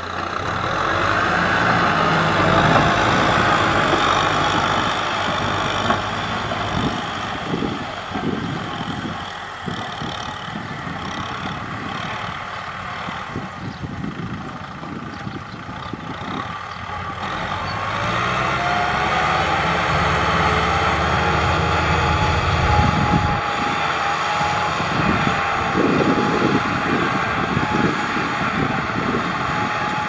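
Kubota M6040SU tractor's diesel engine running steadily under load while pulling a disc plough through a stubble field, mixed with the grinding of the discs through the soil. It is louder for the first few seconds, eases off in the middle, and swells again for the last third.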